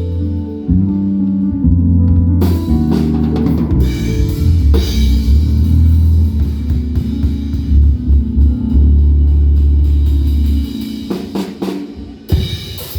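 Band music: a drum kit with snare, bass drum and several cymbal crashes over deep, held bass notes, played loud through a sound system during a sound check.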